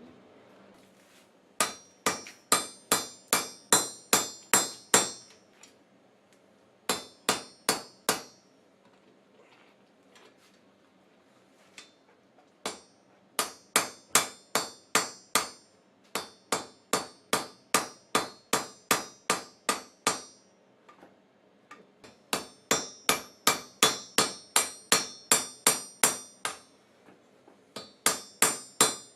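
Hand-hammer blows on steel over an anvil while forging a silversmithing hammer head. The strikes come in quick runs of about three a second, each with a bright metallic ring, with short pauses between runs.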